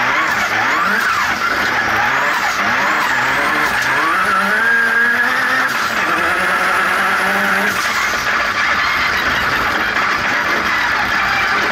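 Turbocharged engine of a Formula Xtreme off-road racing buggy, heard from the cockpit, revving hard up and down as the driver works the throttle through the gears. The pitch rises and falls in quick sweeps, climbs in one longer pull held from about four to eight seconds in, then drops and sweeps again. The engine is running on wastegate spring pressure only, well down on its boost-controlled power.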